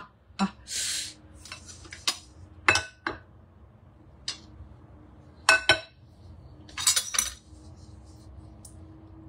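Kitchen utensils handled against dishes and a steel cooking bowl: a string of separate clinks and knocks, a few ringing briefly, with a short scrape and some wooden-spoon stirring. A faint steady hum runs underneath.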